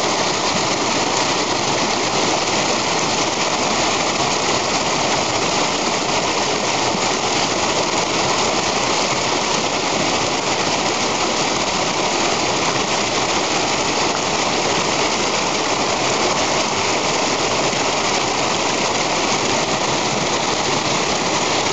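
Steady, even rush of running water after winter rain, unchanging throughout.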